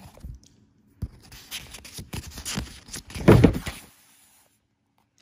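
Paper rustling as a page of a paperback book is turned and pressed flat by hand. It is a crackly rustle of about three seconds, starting about a second in and loudest near its end.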